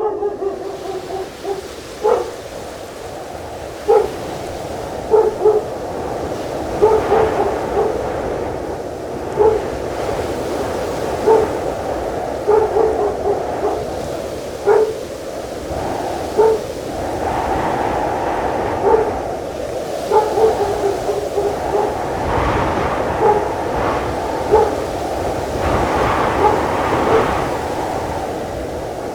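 A dog barking in short single and double barks, every second or two, over a steady rushing of wind and sea. The wind swells and rumbles in gusts in the later part.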